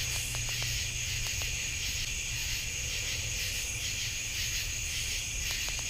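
Night-time chorus of crickets: a steady, finely pulsing high trill in several layers, over a low steady rumble. A few faint clicks sound near the start and near the end.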